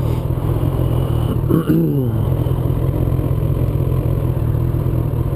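Suzuki Bandit 1200S's inline-four engine idling steadily while the bike stands still. A short sound falling in pitch comes about a second and a half in.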